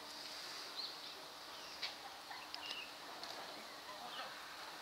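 Quiet outdoor ambience: a steady hiss with a few short, high chirps and a couple of faint clicks.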